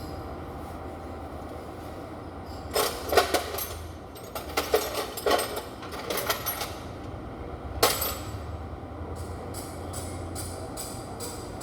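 Sharp metallic clinks and knocks, several in a cluster in the middle and then a run of lighter regular ticks, over a steady low hum.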